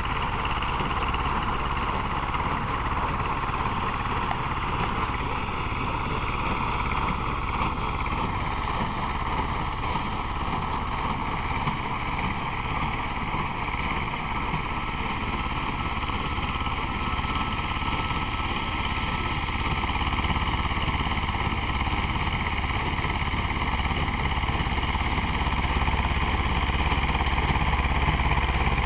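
Vladimirec T-25 tractor's two-cylinder air-cooled diesel running steadily under load, driving a Rivierre Casalis 40 small square baler as it bales hay. It grows a little louder near the end.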